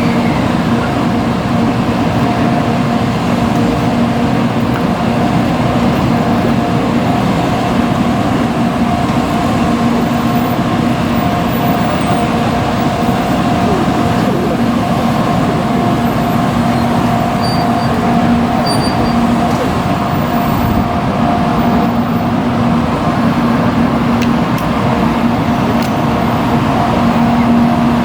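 Steady running noise of a moving vehicle: an even rumble with a constant low hum and a higher hum above it, holding the same level throughout.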